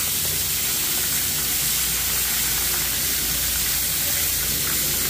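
Chicken pieces deep-frying in a large pan of hot oil: a steady, loud sizzle of bubbling oil.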